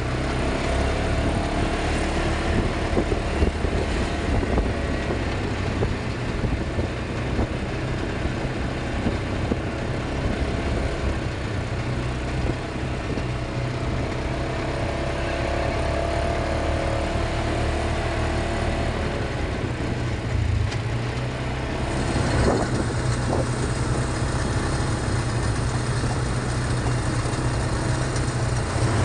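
Quad bike (ATV) engines running steadily as the bikes ride along a road, with a heavy low rumble.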